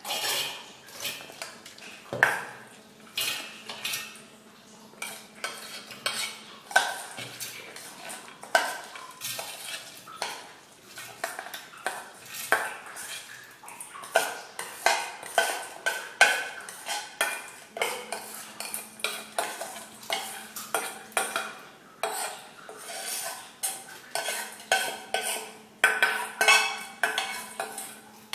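Stainless steel bowl clinking and scraping against the rim of a steel mixer-grinder jar as soaked rice and chana dal are scraped out by hand and drop into the jar, with many irregular small knocks.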